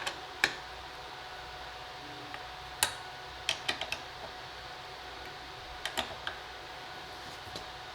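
Scattered light clicks and taps of screws, washers and hand tools being handled while assembling a CNC Z-axis slide, some single and some in quick groups of two or three, over a faint steady hum.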